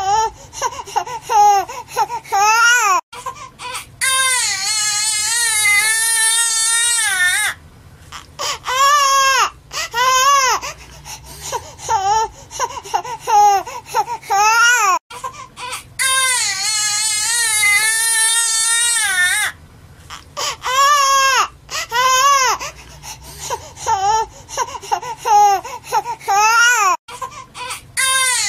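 Baby crying hard: a run of short wails and long, wavering wails with brief breaks between them. The same stretch of crying repeats about every twelve seconds, as a loop.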